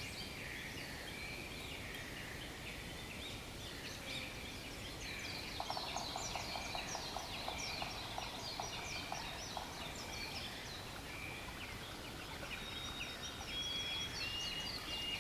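A dense chorus of many birds calling over one another, in quick overlapping chirps and whistles. A rapid chattering trill runs through the middle, and a thin held whistle comes in near the end.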